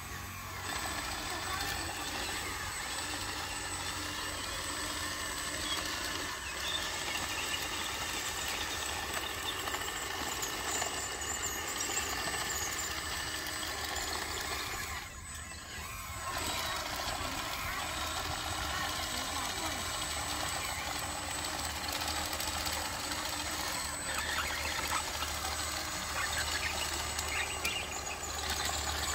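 Radio-controlled toy bulldozer running on its tracks as it pushes dirt, a steady motor hum that dips briefly about halfway.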